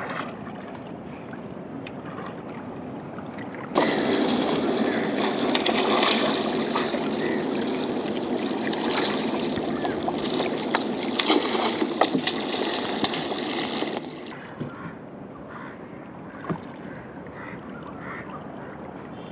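Water splashing and lapping around a small boat, with scattered knocks. The sound becomes louder and fuller for about ten seconds in the middle.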